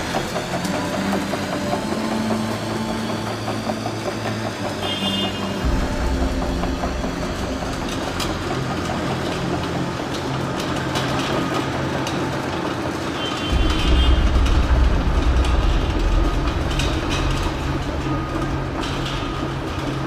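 Steady mechanical noise of heavy machinery at work, with a deep rumble that swells about six seconds in and again more strongly from about two thirds of the way through.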